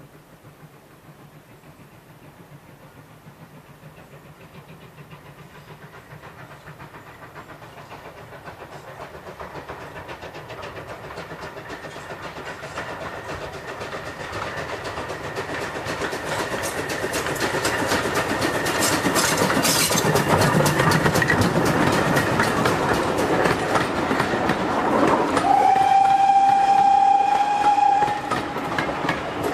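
A train draws steadily nearer and louder, with rapid rhythmic beats and wheel clatter. Near the end its whistle sounds one steady, held note for about two and a half seconds. The train is plausibly GWR pannier tank 6412 running under steam.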